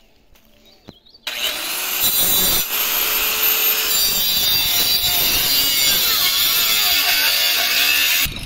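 Small corded electric circular saw cutting into the end of a wooden ox-cart axle: it starts about a second in, runs steadily under load with a brief dip a little later, and stops just before the end.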